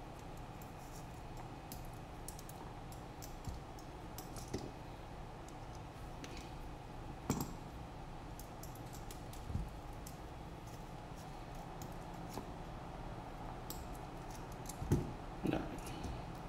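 Light clicks and taps of a hex driver and small metal drone parts being handled on a silicone workbench mat. A few sharper knocks stand out, the loudest two close together near the end, over a steady low background hum.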